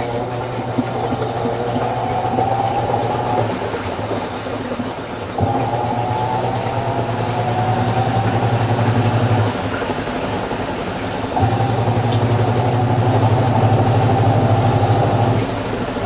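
AQUA AQW-GS70H 7 kg top-loading washing machine running: its motor hums, with a whine that rises in pitch over several seconds. The motor stops briefly about four seconds in and again near ten seconds, then starts up again each time.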